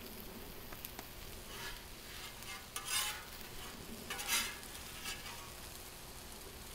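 A metal spatula scraping across the steel top of a Blackstone griddle: several short scrapes, the loudest about three and four and a half seconds in. Under them runs a steady low sizzle of food frying on the hot griddle.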